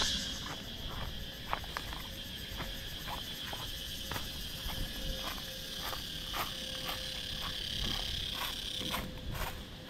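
Forest insects droning in a steady high buzz that fades out near the end, over regular footsteps about two a second.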